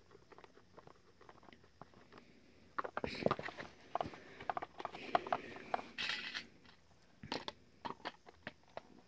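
Hard plastic body of an animatronic Santa figure clicking, tapping and rattling as it is handled and screwed back together, with scattered sharp clicks that are busiest from about three to six and a half seconds in.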